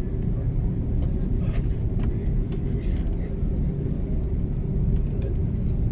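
Cabin noise of an Airbus A330-300 taxiing: a steady low rumble from the engines at taxi power and the airframe rolling on the taxiway, with a steady hum running under it.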